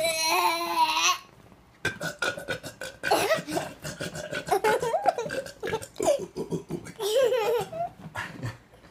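A baby laughing and squealing in short, choppy bursts, mixed with a man's playful burping.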